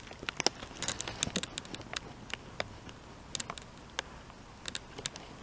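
Drinking chocolate milk from a small plastic jug: faint, irregular little clicks of swallowing and mouth sounds.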